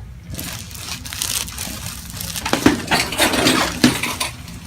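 Rustling and handling noise on a chiropractic treatment table as the patient is moved after a thoracic adjustment, with a few sharp clicks, the loudest about two and a half seconds in, over a low steady hum.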